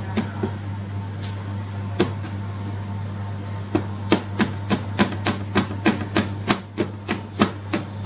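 Chopping strokes on a cutting board, about three a second, with a pause between about two and nearly four seconds in. A steady low hum runs underneath.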